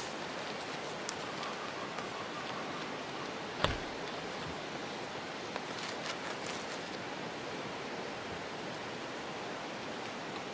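A stainless steel mug set down on a wooden post with a single knock a little under four seconds in, over a steady rushing outdoor noise. A few faint crinkles of a paper drip-coffee bag being handled follow a couple of seconds later.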